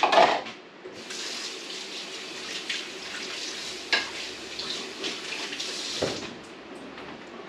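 Kitchen tap running into the sink for about five seconds, with a few light knocks of utensils against the sink. A short clatter comes just before the water starts and is the loudest moment.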